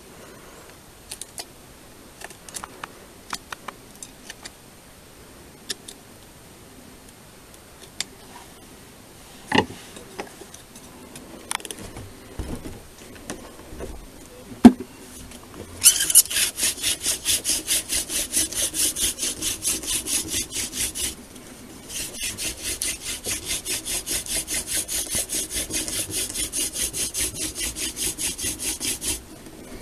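Hand-drill friction fire: a wooden spindle spun back and forth between the palms, rasping in the hearth board's notch in a fast, even rhythm as it builds heat toward an ember. It starts about halfway in, breaks off briefly, then resumes. Before it there are scattered light clicks and knocks.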